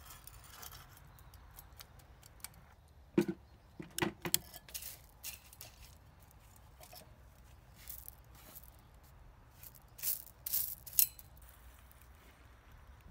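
Sharp clicks and light rattles of small hard objects being handled, in two short clusters about three to four seconds in and about ten to eleven seconds in, over a faint steady outdoor background.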